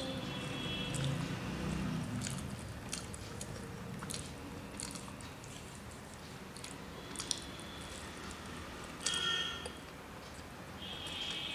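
Close-up eating sounds: mouth-close chewing with small wet smacks and clicks, and soft squishing of rice being kneaded by hand on a steel plate.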